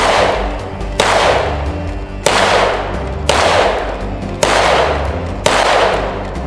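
Six gunshots fired about a second apart, each with a long echoing tail, over background music.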